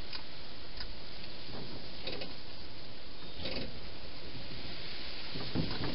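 Wild hedgehog feeding at a bowl inside a plastic feeding station: a few scattered short crackles over a steady hiss.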